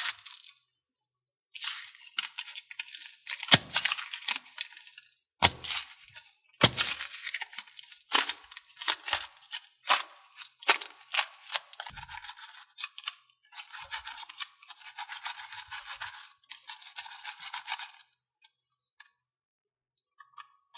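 Slime and putty being squeezed and worked by hand, giving a rapid string of sticky clicks, pops and crackles with a few sharper snaps, and a longer stretch of continuous crackling near the end.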